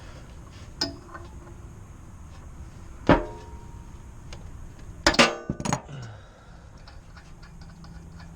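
Metal hand tools clinking and knocking against metal, with a light click, one sharp strike that rings briefly about three seconds in, and a quick run of knocks around five seconds in.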